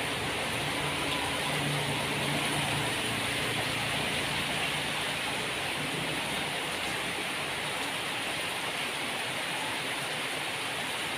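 Rainwater pouring in a steady stream from a spout and splashing into a puddle on hard wet ground, over steady rain. A faint low hum is mixed in during the first few seconds and fades out.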